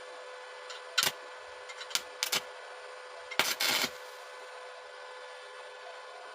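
Hand tools or metal pieces being handled: a single sharp knock about a second in, a few more around two seconds, and a short scraping clatter past three seconds. A steady hum with a faint constant tone runs underneath.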